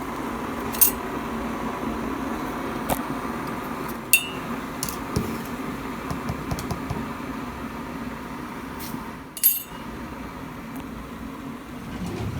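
Electric kettle heating water, a steady hum, with a few light clinks of crockery, one of them ringing briefly, and a sharper clatter near the end.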